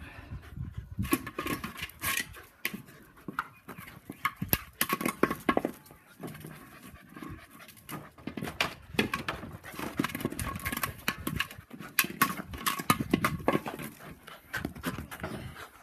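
Australian cattle dog panting hard in quick, irregular breaths.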